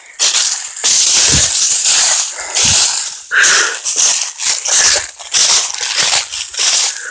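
Footsteps crunching through dry leaves and brush, moving fast, with irregular rustling and crackling.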